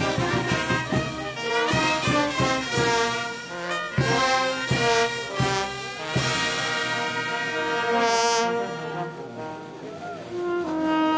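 Andean brass band (banda orquesta) playing: trumpets, sousaphones, clarinets and saxophone in full chords over bass drum and cymbals. The drum beats stop about six seconds in, leaving the band on long held notes.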